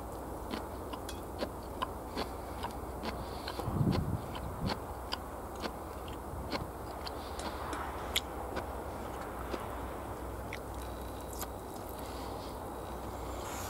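Close-up chewing of a katsudon (pork cutlet rice bowl): irregular wet mouth clicks and smacks as the food is chewed, with a low thump about four seconds in.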